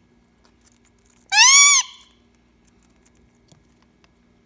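Indian ringneck parrot giving one loud, half-second call that rises and then falls in pitch, with faint scattered clicks from chewing on a pecan shell.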